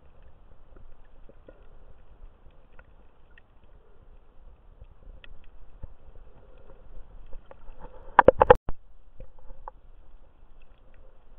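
Muffled underwater sound picked up by a submerged camera: a low rumble of water with scattered faint clicks, and a quick run of about four loud knocks a little past the middle.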